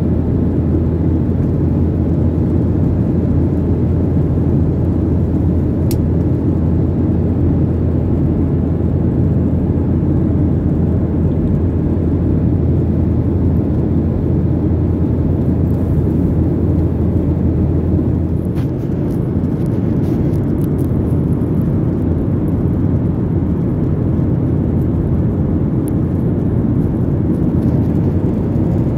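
Steady low rumble of a jet airliner's cabin: engine and airflow noise. A low hum under it drops away about two-thirds of the way through.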